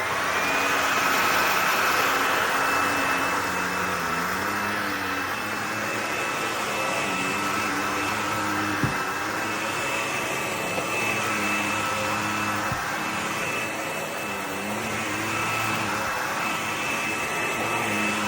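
Bissell PowerClean FurGuard cordless stick vacuum with a 280 W motor, running steadily with a high whine over a lower hum that wavers in pitch now and then. Two faint clicks come about nine and thirteen seconds in.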